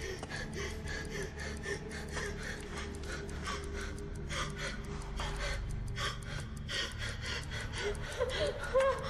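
A woman gasping and panting in panic, with quick breaths about three to four a second over a low steady film-score drone. A short, higher whimpering cry comes near the end.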